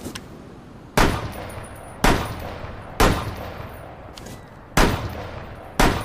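LFP586 revolver gunshot sound effect: five single shots, about a second apart with a longer pause before the fourth, each followed by a fading echo tail. A faint click comes just before the first shot and another in the pause before the fourth.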